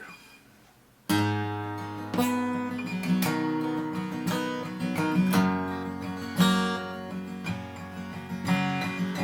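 Acoustic guitar strumming a song's introduction. It comes in about a second in and strikes chords roughly once a second.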